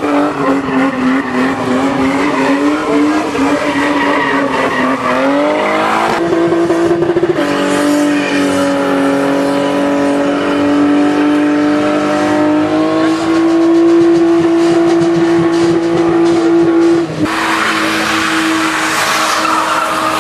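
BMW E30 and E36 engines held at high revs during burnouts, with the rear tyres spinning on asphalt. The revs waver and hold, and the pitch and level jump abruptly a few times.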